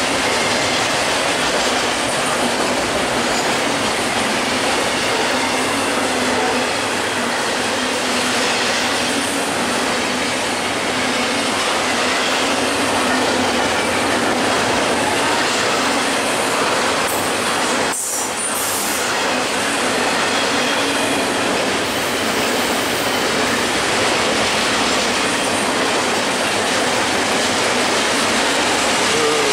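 Double-stack container freight train passing close by on the near track: a steady, loud noise of steel wheels running on the rails, with a brief dip about 18 seconds in.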